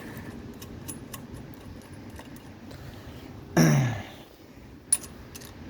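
Small metal clinks of bolts and hand tools being handled. About three and a half seconds in comes a short grunt falling in pitch, and near the end a single sharp click.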